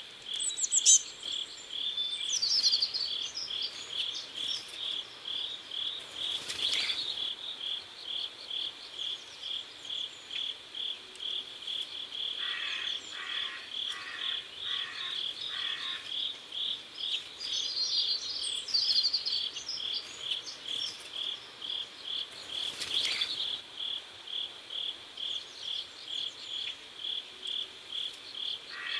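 Crickets chirping in a steady, even pulse, with a bird calling twice over them.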